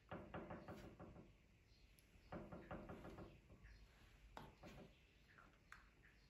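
Quiet close-up eating sounds of a hand-eaten meal of chicken curry and rice: two short bursts of quick wet clicking near the start and about two seconds in, then a few lighter taps as fingers work the rice and chicken.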